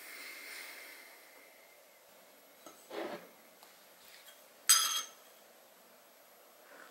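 A metal teaspoon clinks once against a ceramic mug with a short ring, a little under five seconds in. A softer knock comes about two seconds before it.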